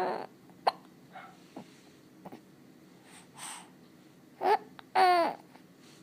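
A baby with hiccups, babbling: a sharp hiccup about half a second in and a few fainter clicks and a breathy sound. Short high-pitched baby calls, falling in pitch, come at the start and again near the end.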